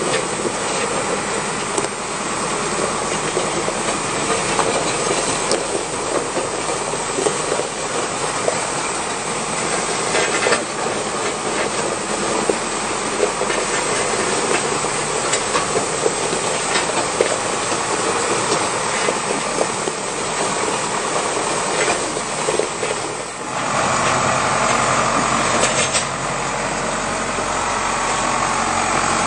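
Zetor Proxima Power 120 tractor's diesel engine running as it tows a ZREMB ZDH 300 road grader, the grader's blade scraping through loose gravel with a steady crunching and rattling of stones. About 23 seconds in, the engine grows louder and clearer as the tractor comes close.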